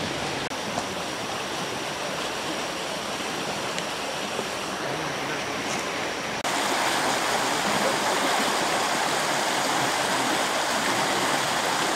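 Steady rushing, water-like noise that steps up abruptly about six and a half seconds in.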